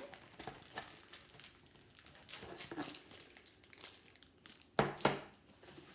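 Small clicks and crinkling from handling slime in plastic containers, with two louder knocks close together near the end as a container is set down or opened.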